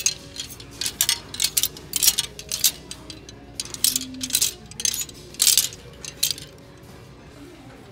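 Clear plastic clothes hangers clicking and scraping against one another along a clothing rack as they are pushed aside one after another, in quick irregular strokes that stop near the end.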